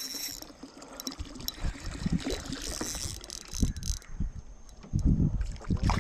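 Water sloshing against a small boat's hull, with irregular knocks and low thumps that are loudest near the end.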